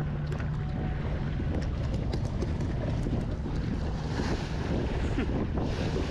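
Boat running under way: a steady engine hum under water rushing and splashing along the hull, with wind buffeting the microphone.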